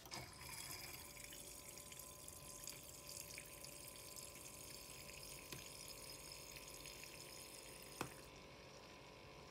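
HadinEEon electric milk frother running with its non-frothing whisk, spinning and heating the milk: a faint, steady hum with the swirl of liquid. A single click about eight seconds in.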